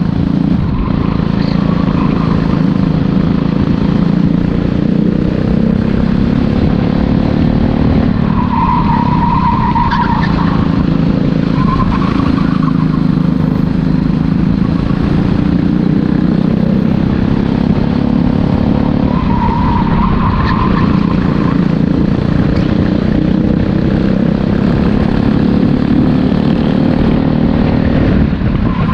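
Racing kart engine heard close up from the driver's seat, running hard, with its pitch climbing slowly along the straights and falling back before corners. A brief higher squeal comes twice, typical of the tyres sliding in a corner.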